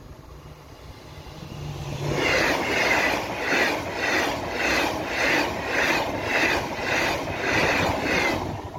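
TGV 2N2 Euroduplex double-deck high-speed train passing close by at speed: a rush of wheel and air noise that builds over the first two seconds. While the train goes by it pulses regularly about twice a second, then falls away near the end.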